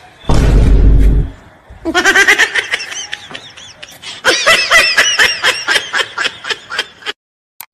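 A loud, noisy burst with heavy bass in the first second, then two bouts of high-pitched laughter in quick rhythmic pulses that cut off abruptly near the end.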